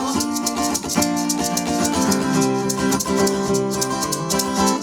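Live band playing an instrumental break in an upbeat song: strummed guitar chords over a steady shaker rhythm.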